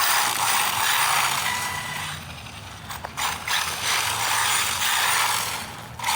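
Arrma Typhon RC buggy running on tape-wrapped drift wheels: its electric motor and drivetrain whir in surges of throttle, easing off about two seconds in and picking up again.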